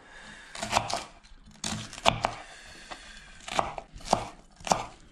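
Kitchen knife slicing a red onion on a wooden cutting board: a run of about seven uneven cuts, each ending in a knock of the blade on the board.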